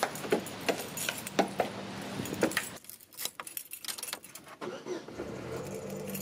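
Car keys jangling on a key ring with sharp metallic clicks as a key unlocks the car door. After a quieter stretch, more clicks follow as the key goes into the ignition.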